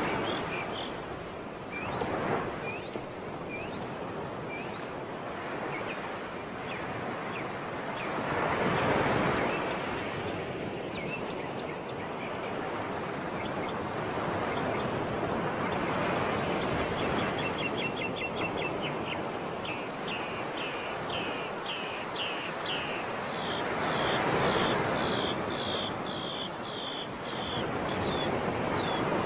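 Sea waves washing ashore, the surf swelling and fading every several seconds, with small birds chirping over it. About halfway through a bird gives a fast trill, then a run of repeated down-slurred notes.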